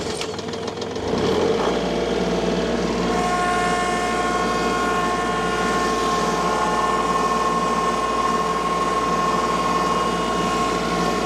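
Tractor engine revving up about a second in, then running steadily under throttle, with a steady whine added a few seconds in.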